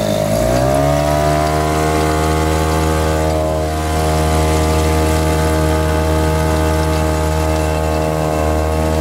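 Tohatsu 3.5 B2 single-cylinder two-stroke outboard motor running at full throttle, pushing a dinghy. Its note shifts over the first second as the throttle opens, then holds steady.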